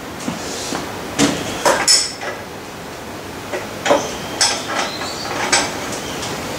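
Scattered metallic clinks and knocks, about eight in all, the brightest ringing about two seconds in and again near four and a half seconds: hand tools working the lathe stand's levelling screws.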